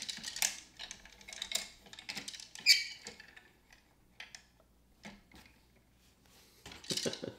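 Plastic gears of a Downspin board game being turned by hand with its key: scattered clicks and squeaks, the loudest about two and a half seconds in, going almost quiet for a couple of seconds before more clicking near the end.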